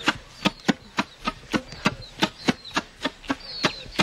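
Rice being beaten by hand: a steady run of sharp, regular strikes, about three to four a second. Short high bird chirps sound between the strikes.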